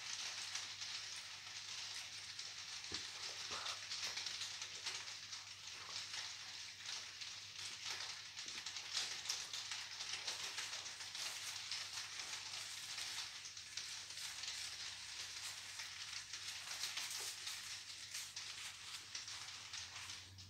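Close-miked chewing of pizza and hamburger: a continuous stream of fine, crackly wet mouth clicks.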